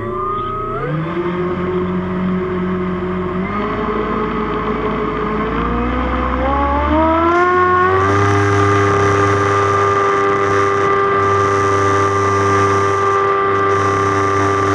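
RC airboat's electric drive, an NTM Prop Drive 5060 380KV brushless motor on 6S turning a two-blade 17x8 propeller, whining as it runs. The pitch rises in steps as the throttle is opened, then holds steady at speed from about halfway on.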